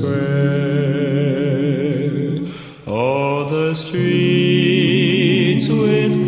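Gospel quartet singing a cappella in close harmony, holding long chords with wavering pitch. About two and a half seconds in, the sound dips briefly and the voices glide into a new chord, which they hold.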